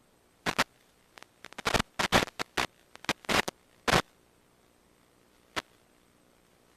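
Irregular short bursts of static crackle over an otherwise silent track, about fifteen sharp crackles bunched together in the first four seconds and one more a little later. No propeller or engine sound is heard.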